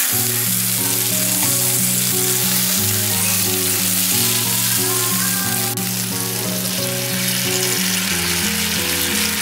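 Hamburg steak sizzling on a hot iron serving plate, a steady crackling hiss, with background music under it.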